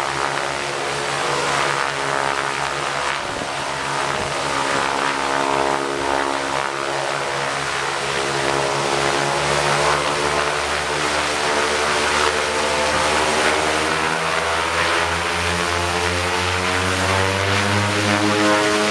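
Twin-engine turboprop aircraft running its engines with a steady propeller drone. Over the last several seconds the pitch rises and the low drone grows stronger as power comes up ahead of the takeoff roll.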